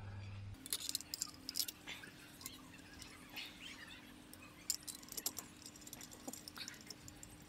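Faint, scattered metallic clinks and rattles of a hand tool and fasteners as a bracket is fitted to a car's diff cover, over a low steady hum.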